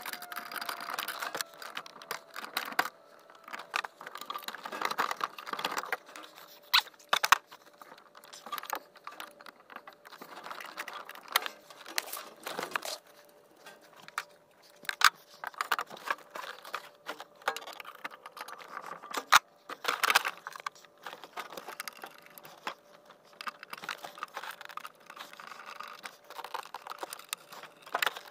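Hands working on heater parts in a cramped metal compartment: scattered clicks, knocks and rattles with bouts of rustling as the cover, hoses and ducting are pulled loose, over a faint steady hum.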